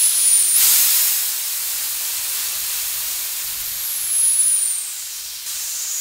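Compressed nitrogen hissing steadily through the refrigerant manifold hoses into the mini split line set as it is pressurized for a pressure test, loudest in the first second, with a faint high whistle that slowly falls in pitch.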